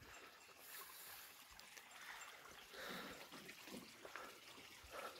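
Near silence: faint outdoor background noise with a few soft, indistinct sounds.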